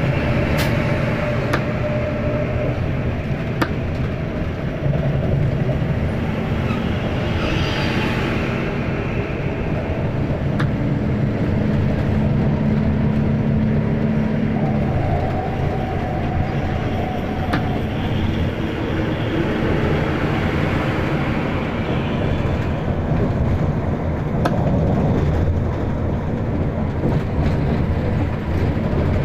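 Steady engine hum and tyre noise heard inside the cabin of an intercity bus driving on a wet road, with a few faint clicks and rattles. The engine note shifts a couple of times as the bus changes speed.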